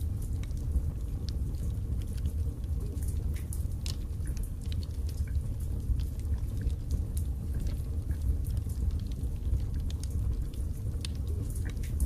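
Wood fire burning in a fireplace: a steady low rumble of flames with frequent, irregular sharp crackles and pops from the burning logs.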